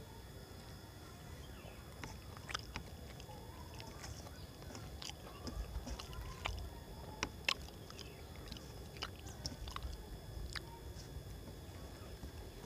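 Faint eating sounds: chewing and scattered sharp clicks as rice is mixed by hand on a steel plate.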